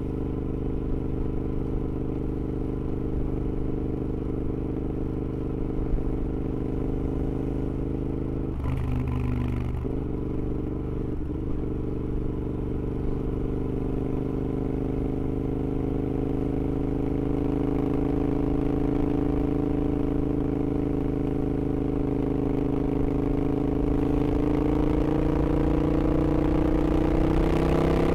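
Royal Enfield Interceptor with an 865cc big-bore parallel-twin engine and high-flow headers and mufflers, running under way. The note holds steady, breaks briefly about nine seconds in, then climbs steadily higher in revs and gets louder over the last dozen seconds as the bike accelerates.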